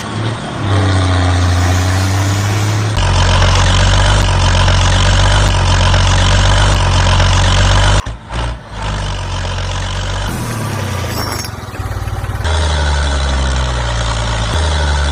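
Small electric motors and gearboxes of homemade model tractors running, a loud steady rumble with a whine over it. It breaks off briefly about eight seconds in and changes in level several times.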